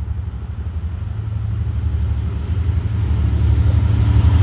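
Approaching EMD F59PHI diesel locomotive, its two-stroke V12 prime mover running with a steady low rumble that grows louder as it nears.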